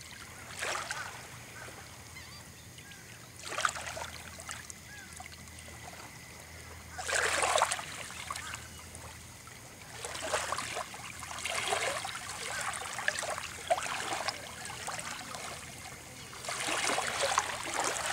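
Small waves lapping onto wet sand at the water's edge: a hissing wash comes in every few seconds, loudest about seven seconds in.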